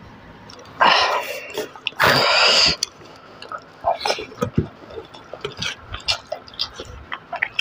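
Eating rice and pork curry by hand, mukbang-style: two loud hissing rushes about a second in and again a second later, then wet chewing and lip-smacking clicks from a handful taken into the mouth and chewed open-mouthed.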